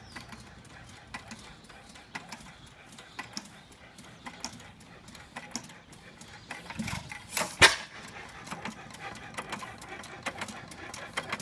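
6 hp Milwaukee Associated single-cylinder hit-and-miss engine running, a steady stream of clicks and ticks from its valve gear and ignitor, with one louder pop about seven and a half seconds in.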